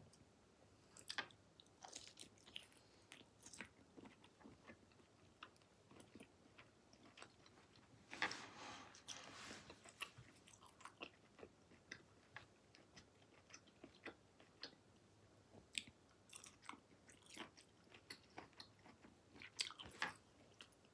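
Close-miked chewing of raw sashimi: faint wet mouth clicks and smacks, with a louder stretch of chewing about eight seconds in and again near the end.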